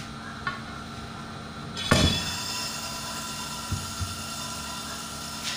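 Thick 12 mm glass snapping along its scored cut line: one sharp, loud crack about two seconds in, with a short ringing tail. A light click comes before it and a couple of faint knocks follow.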